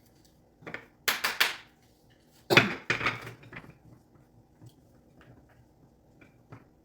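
Wooden plant-stand parts knocking and clattering against each other as they are handled and fitted: three quick clacks about a second in, then one louder knock with a short rattle, then a few faint ticks.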